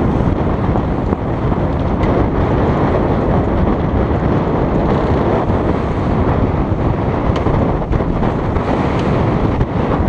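Wind buffeting the microphone over the rush of water along the hull of a Corsair 37 trimaran under sail, a loud steady noise with a few faint clicks in the last few seconds.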